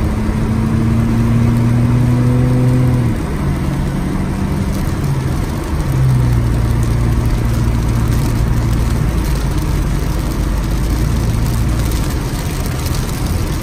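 Heavy rain on a moving car and its tyres on the wet road, heard from inside the cabin as a steady loud hiss, with the car's engine humming under it. The hum fades about three seconds in and comes back about six seconds in.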